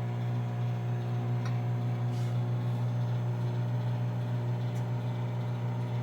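BLACK+DECKER 0.9 cu ft digital microwave oven running with a loud, steady electrical hum, with a faint tick or two. The hum stops abruptly at the end.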